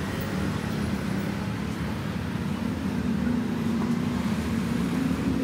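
Steady engine-like drone with road-traffic noise; its low tone creeps slightly higher in pitch.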